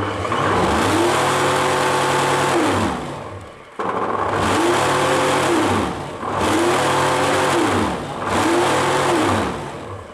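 LG vacuum cleaner motor running with a loud hum, speeding up, holding speed, then slowing down, four times over. The hum is the fault being shown: the vacuum cleaner hums terribly.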